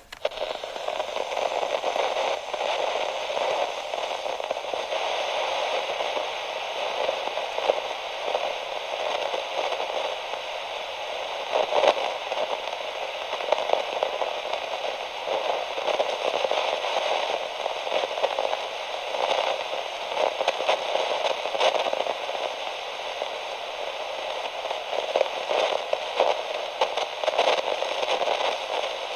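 Radio static: a continuous thin hiss full of irregular crackles and pops, wavering in loudness.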